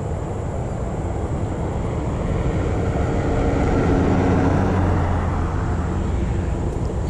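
A car driving past: a steady rush of tyre and engine noise that swells to its loudest about four seconds in, then fades.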